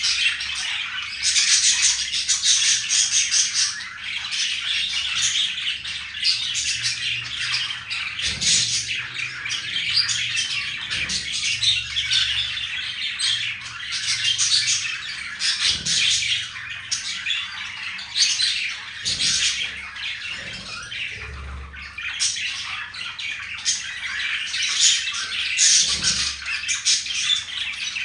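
Budgerigars chattering and squawking continuously, a fast, high, scratchy warble with louder squawks mixed in: a male budgie's courtship chatter toward a female.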